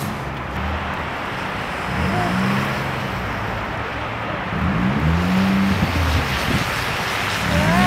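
Small utility vehicle with a front snowplow blade running through snow, its engine rising and falling in pitch twice, over a steady rushing noise of wind and road slush.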